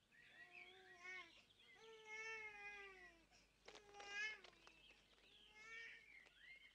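A small child's voice, faint and high, saying a short line in a few gliding phrases, with faint bird chirps behind it. This is the recorded spoken intro that comes before the acoustic guitar.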